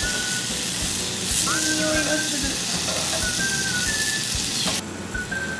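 Meat sizzling loudly on a hot yakiniku grill, cutting off abruptly near the end, over background music with a whistled melody.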